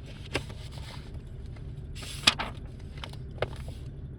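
Handling noise: three short sharp clicks, the loudest about two seconds in with a brief rustle around it, over a low steady hum.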